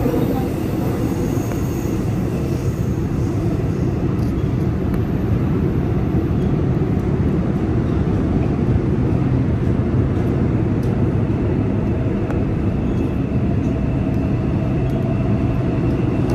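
Korean subway train running, heard from inside the car: a steady, loud rumble of wheels and running gear.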